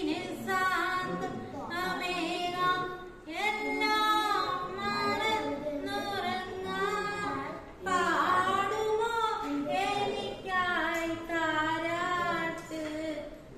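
A single high voice singing a song without accompaniment, in phrases with short breaks between them, with long held notes that waver in pitch.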